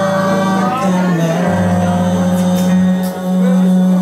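Live rock band playing: electric guitar and drum kit with long held chords and a few cymbal hits just past the middle.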